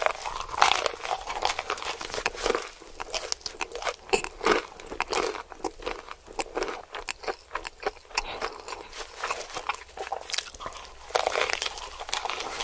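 Close-miked crunchy bites and chewing, a dense run of irregular sharp crunches and crackles.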